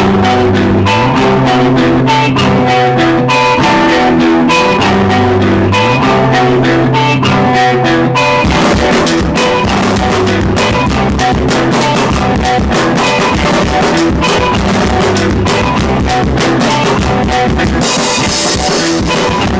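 Instrumental music with guitar and drum kit, playing steadily; the texture gets busier about eight seconds in, and a bright cymbal wash comes in near the end.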